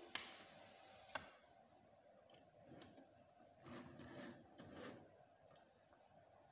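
Faint mechanical clicks from a homemade 3D printer used as a pen plotter: two sharper clicks about a second apart near the start, then softer clicks and a brief low hum from its stepper motors near the middle.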